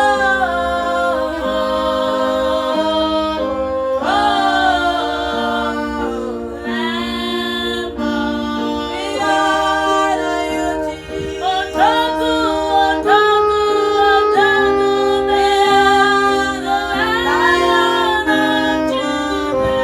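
Gospel worship song: a singing voice with sliding, ornamented phrases over sustained keyboard chords.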